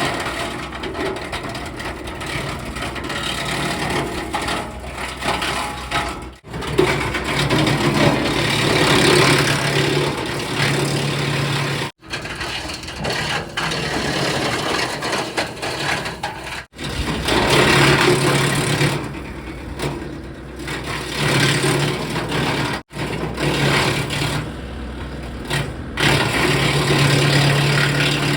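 John Deere 3025E compact tractor's diesel engine running and driving a three-point-hitch PTO wood chipper: a steady low engine hum under a noisy mechanical clatter that swells louder in several stretches. The sound is cut off abruptly a few times.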